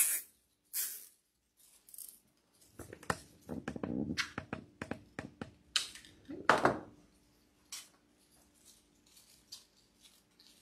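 Artificial flower stems and silk leaves rustling and crackling as they are handled and bundled, with a couple of sharp snips from shears around six seconds in.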